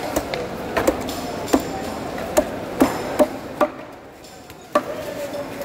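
A large knife chopping a fish crosswise into steaks, the blade knocking on a wooden chopping block: about eight sharp knocks at uneven intervals, with a quieter pause around four seconds in.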